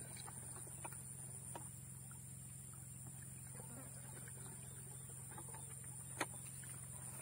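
Water splashing faintly as it is poured from a plastic bucket into a knapsack sprayer tank, over a steady high insect chorus. A single sharp click comes about six seconds in, as the bucket is lowered by its wire handle.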